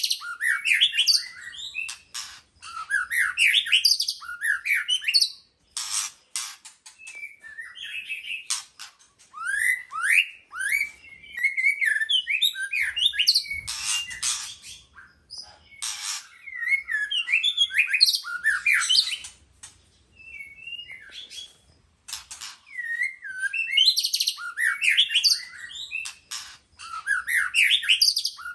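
White-rumped shama singing: bursts of varied, rich whistles and fast chattering notes, with short pauses between phrases and some sharp clicking notes mixed in.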